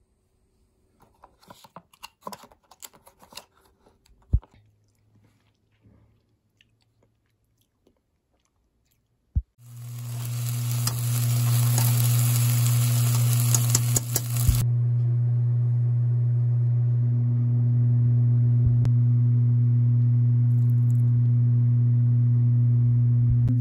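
Faint scattered clicks and crunches at first. About ten seconds in, a loud steady low hum starts and runs on, and for about five seconds eggs and tomato sizzle in a frying pan over it.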